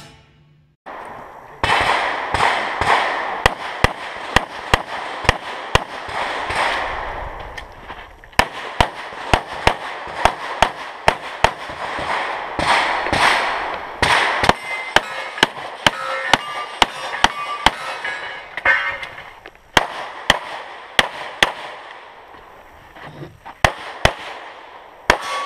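Pistol shots fired in quick strings of two or more, dozens in all, with short gaps between strings.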